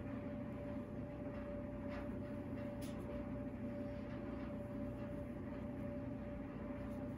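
Quiet room tone: a steady low hum with a faint constant tone, and a couple of faint light ticks.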